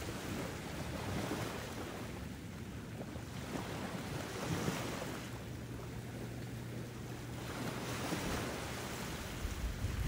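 Ocean surf: waves washing in and drawing back, the hiss swelling and fading about every three to four seconds.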